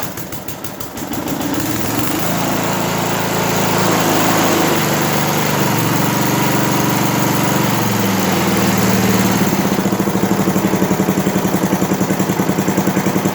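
Stock 6 hp Briggs & Stratton single-cylinder engine running just after a cold start. Its speed wavers for the first several seconds, then settles about nine seconds in to a low idle with an even, pulsing beat.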